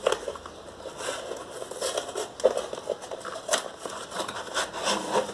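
Cardboard box and its packaging being handled and opened as a ceramic soup bowl is pulled out: irregular crinkling and rustling with small clicks and taps.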